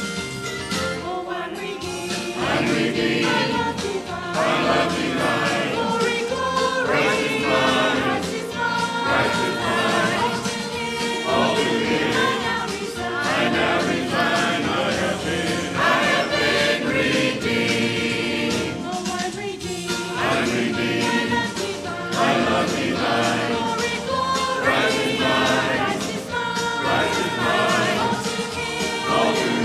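Choir singing a gospel hymn.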